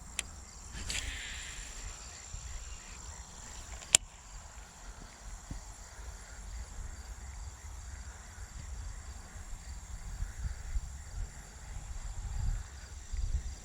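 Outdoor ambience of insects droning steadily at a high pitch, with low wind rumble on the microphone. A short swish about a second in and a single sharp click about four seconds in.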